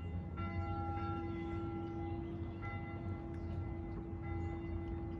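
Church bell ringing, struck about every two seconds, its tone hanging on between strokes, over a low steady rumble.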